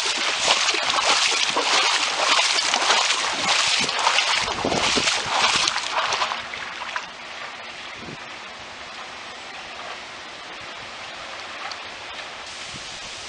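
Floodwater rushing out through a breached lake levee, a loud, churning rush for about six seconds that then drops to a quieter, steady flow.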